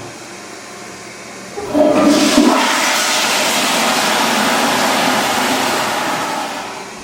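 Rushing water, low at first, swelling suddenly less than two seconds in, then running steadily and easing a little before it stops abruptly near the end.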